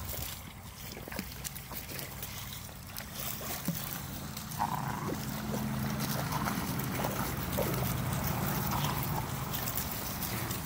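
Several dogs wading through shallow creek water, sloshing and splashing with small scattered splashes. A low steady hum comes in about four and a half seconds in and continues under the water sounds.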